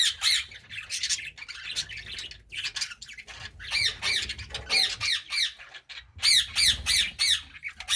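Budgerigars chirping and chattering in quick runs of high, warbling chirps, with short breaks about two seconds and six seconds in.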